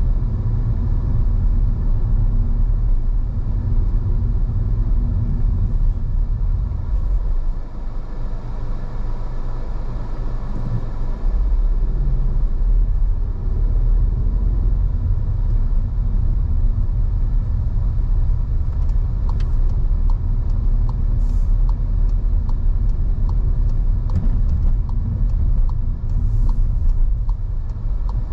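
A car driving, heard from inside the cabin: a steady low rumble of engine and road noise that dips briefly about eight seconds in. About two-thirds of the way in, a regular light ticking starts.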